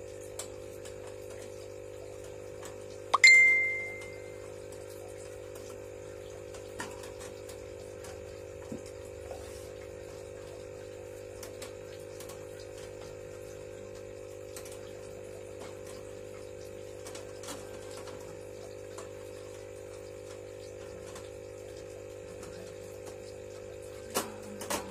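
Green wire hamster cage being closed: about three seconds in, one sharp metallic clink that rings briefly. Faint scattered ticks and rattles of the wire follow, with two small clicks near the end, over a steady low hum.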